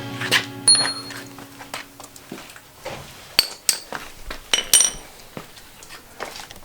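Steel hand tools clinking and tapping on metal: a handful of scattered sharp strikes, some with a short bright ring.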